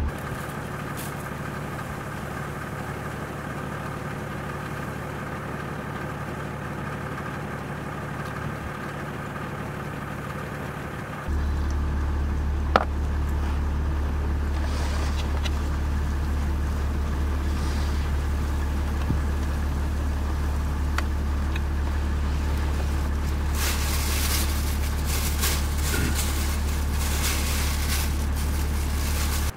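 A motor vehicle's engine idling: a steady low drone that steps up in level about eleven seconds in, with a single sharp click shortly after.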